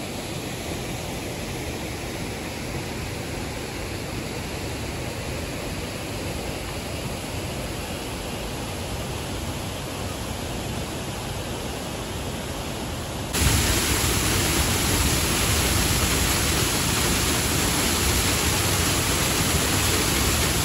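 Steady rush of flowing river water, a constant noise with no breaks, that becomes abruptly louder about two-thirds of the way in.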